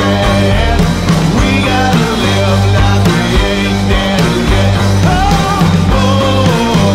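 Rock music with a steady beat, full band, played loud.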